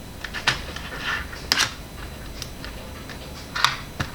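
5 mm neodymium magnetic balls clicking as they snap together: a few sharp clicks with quieter ticks between.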